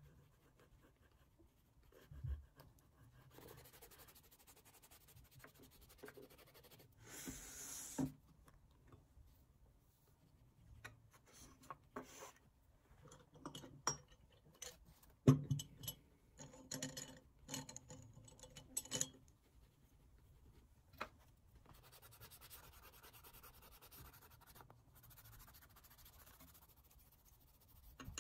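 Oil pastel and fingertips rubbing and scratching on sketchbook paper, then scattered taps and knocks as art supplies are handled, the loudest knock about halfway through.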